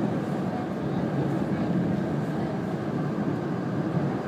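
Steady running noise of an E2 series Shinkansen heard inside the passenger car, an even low rumble.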